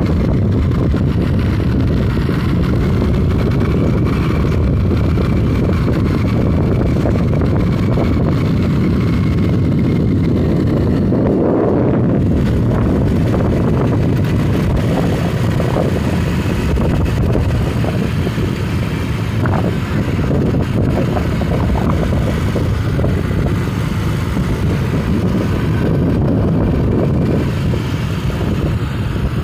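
Loud, steady rush of wind and running noise heard from a moving motor vehicle, with wind buffeting the microphone.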